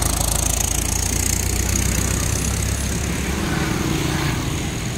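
Running machinery: a steady low rumble that thins about three seconds in.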